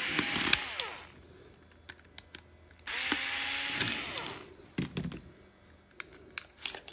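Cordless screwdriver running in two short bursts, each about a second and a half, driving out small Phillips screws from a carving knife's plastic housing; the motor's whine drops in pitch as each burst winds down. A few light clicks and knocks follow as the housing parts are handled.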